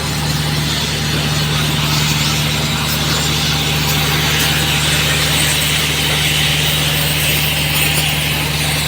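Gas-and-oxygen heating torch blowing with a steady hiss while it heats an asphalt road joint, over the steady low hum of an idling engine.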